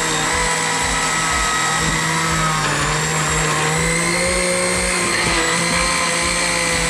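Countertop blender motor running steadily with a high whine, churning a jar packed full of onion and pear chunks with soy sauce.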